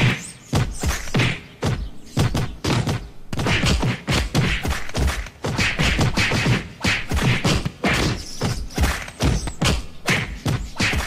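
Cartoon fight sound effects: a rapid run of punch thumps and whacks, several a second, with swishing hiss between hits.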